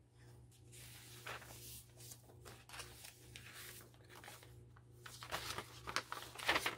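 Paper rustling and crinkling as the pages of a handmade junk journal are handled and turned, louder near the end, over a low steady hum.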